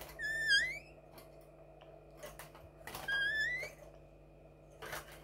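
Caged linnet × canary hybrid giving two calls about two and a half seconds apart, each a short held note that rises in pitch at the end, among sharp clicks of the bird hopping and fluttering on the perches. The bird is a little nervous after being handled.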